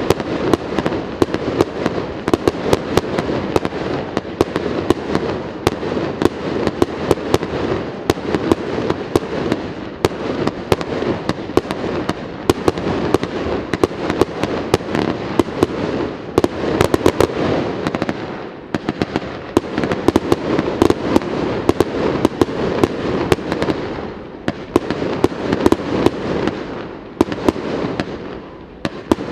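Fireworks display: a continuous, rapid barrage of bangs and crackling from bursting shells, with a few brief lulls in the second half.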